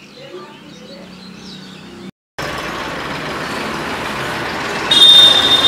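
Faint bird chirps for about two seconds. After a short break, loud road traffic noise, with a vehicle horn giving a brief high, steady honk near the end.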